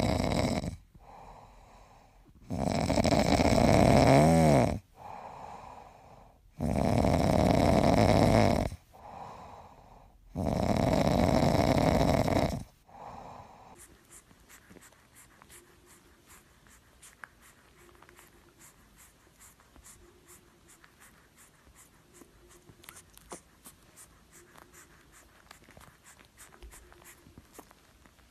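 A bulldog snoring while asleep: long, loud snores about every four seconds, with quieter breaths between them. About halfway through the snoring stops, leaving only faint clicking.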